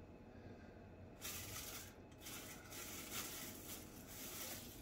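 Faint rustling of packaging material as the statue pieces are handled, starting about a second in, with a short break near two seconds.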